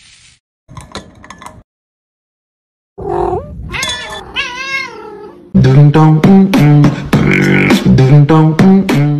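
A cat meowing in wavering calls that rise and fall, starting about a third of the way in, followed just past halfway by loud rhythmic vocal music with a repeating beat.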